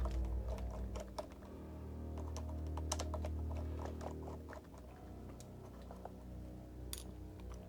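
Irregular small clicks and taps as screws and plastic robot parts are handled during disassembly, over a steady low hum.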